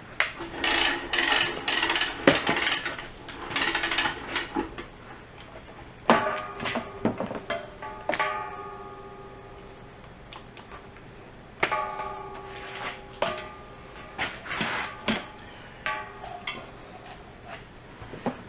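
Metal knocks and clanks, several of which ring on and fade, among rattling and scraping handling noise.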